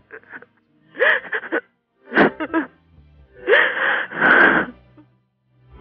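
A woman crying: four ragged, breathy sobs and gasps, over soft background music.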